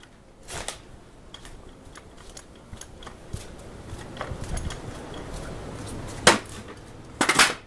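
A few sharp knocks and clicks, like things being handled and moved about. There is a softer pair about half a second in, a single loud knock about six seconds in, and a quick cluster of knocks near the end.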